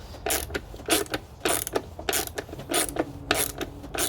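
Ratchet wrench with a 10 mm socket clicking in short back-and-forth strokes, about seven strokes in four seconds, as a bolt is being loosened.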